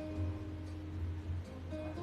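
Background music: held instrumental notes over a steady low bass line.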